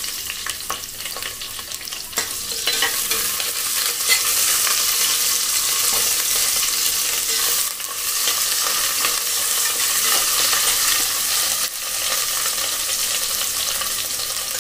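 Sliced onions sizzling as they fry in hot oil and ghee in a stainless steel pressure cooker, stirred with a spatula. The sizzle starts as the onions hit the oil, grows louder about two seconds in, then stays steady. The onions are being fried toward golden brown.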